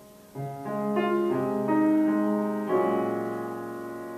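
Piano accompaniment playing the closing bars of a musical-theatre ballad after the singing has stopped: a few notes one after another, then a final chord a little over halfway through that rings and slowly fades.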